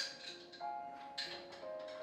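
Background music: soft held melodic notes moving to a new pitch every half second or so, with a light tick of percussion.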